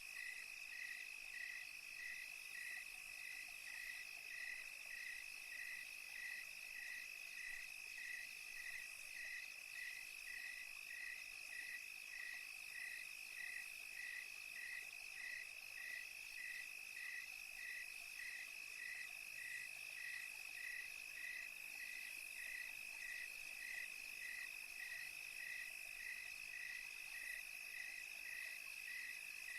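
Night crickets: one holds a steady high trill while another chirps evenly, about one and a half chirps a second, over a faint high hiss.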